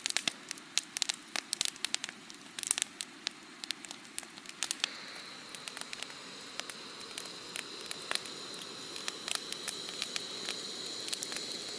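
Wood campfire crackling, with irregular sharp pops. About five seconds in a steady high thin whistle joins and keeps on.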